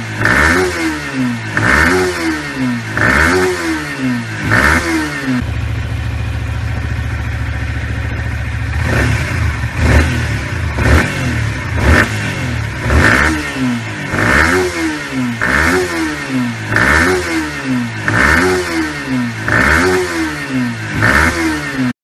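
Yamaha YZF-R15 (2017) single-cylinder engine through its stock exhaust, blipped in quick revs about once every second and a half. It drops to a steady idle for a few seconds about five seconds in, then the quick revs start again and run on until the sound cuts off.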